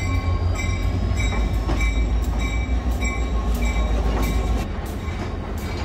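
Diesel locomotive No. 501 rumbling past at low speed as it pulls into the station, with a high ringing that repeats about twice a second over it. The deep engine rumble drops away about four and a half seconds in, as the locomotive passes and the coaches roll by.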